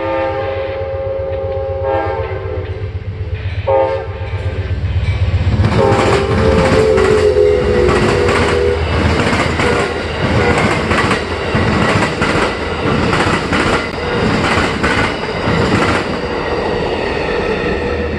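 Amtrak passenger train's locomotive horn sounding the grade-crossing signal: two long blasts, a short one and a final long one that drops in pitch as the locomotive passes. Then the passenger cars rush by at speed, with rapid clacking of wheels over the rail joints.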